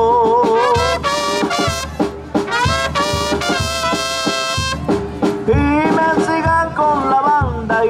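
Banda music: trumpets and trombones playing a melody over a steady bass beat.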